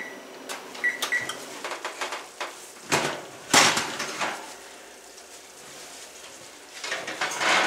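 Oven control panel beeping a few short times as the timer is set, then cookware clattering and a knock, about three to four seconds in.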